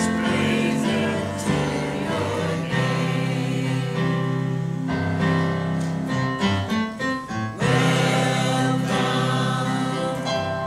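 Church choir singing a gospel hymn with instrumental accompaniment, the sound thinning briefly about two-thirds of the way through before the full choir returns.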